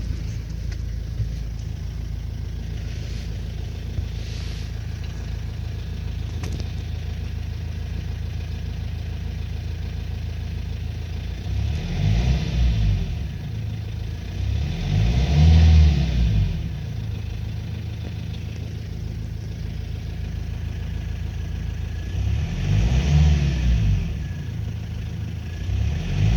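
Renault Trafic 1.9 dCi four-cylinder turbodiesel idling steadily, then revved up and let fall back several times in the second half, each rise and fall taking about two seconds. The engine has an extraneous knock whose cause the owner does not know.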